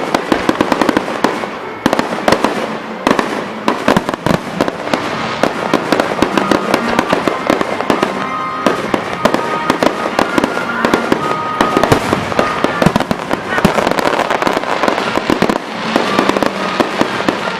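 Aerial fireworks exploding in a dense, rapid barrage of bangs and crackles, with no pause between bursts.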